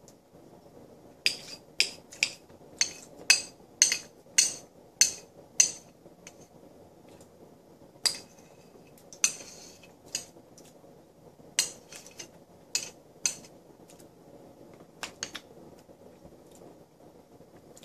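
Metal spoon clinking against a small white bowl as the last of the food is scooped out. First comes a quick run of about nine sharp clinks, roughly two a second, then a short scrape and a few scattered clinks.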